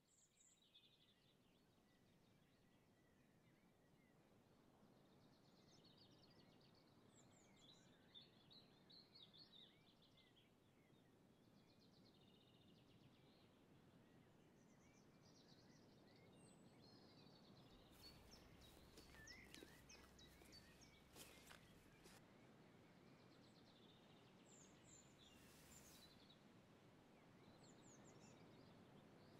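Faint outdoor ambience with scattered chirps and twitters of small birds. A run of faint clicks and crackles comes about two-thirds of the way through.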